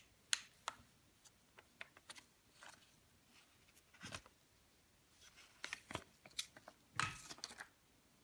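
Soft scattered clicks and crinkles of a clear plastic protective wrap as an iPod is turned over in cotton-gloved hands, with a longer crinkling rustle about seven seconds in.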